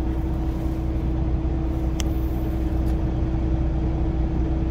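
Semi-truck's diesel engine idling steadily while parked, heard from inside the cab, with a faint click about two seconds in.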